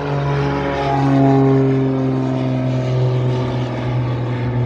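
Twin-engine piston propeller commuter plane climbing out low overhead just after takeoff with its gear up, a loud, steady engine drone whose pitch falls slightly as it passes.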